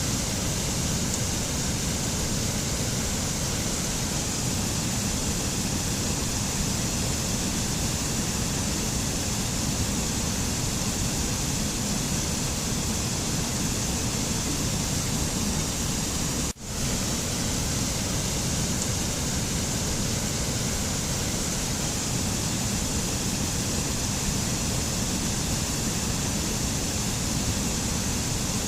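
Steady rushing noise with no tones or rhythm, like a waterfall or mountain wind, with a brief dropout about sixteen and a half seconds in.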